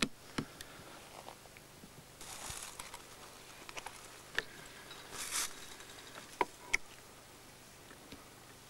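Rustling and crackling of dry twigs and brush as people push through bare scrub, in two brief stretches, with a few sharp snaps or clicks in between.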